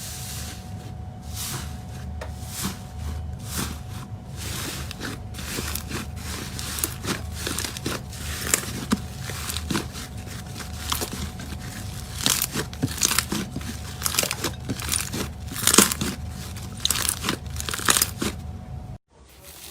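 Slime being worked by hand, giving a dense, irregular run of crunchy crackles and clicks over a steady low hum; it cuts off suddenly near the end.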